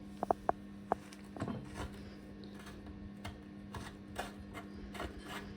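Metal tools clicking and tapping against a chrome bath tap as it is stripped down: a quick cluster of sharp, ringing clicks about a quarter second in, then scattered lighter clicks and knocks, over a steady low hum.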